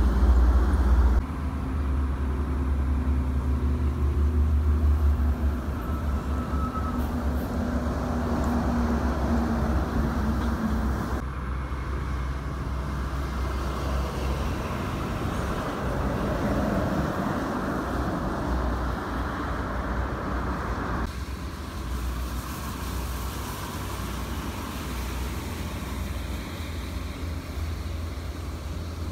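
Toll-road traffic passing close by: intercity buses, trucks and cars going past with engine rumble and tyre noise, in several clips that change abruptly. In the last part the road is wet and there is more tyre hiss.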